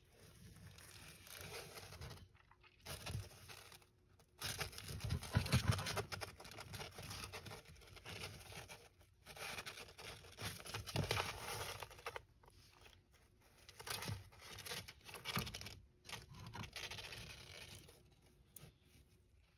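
Savanna monitor tearing at a hornworm and scrabbling with its claws over loose bark-and-soil substrate: irregular bursts of scraping and rustling with short pauses between.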